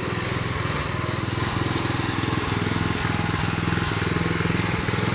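Small petrol engine of a portable concrete mixer running steadily, turning the drum.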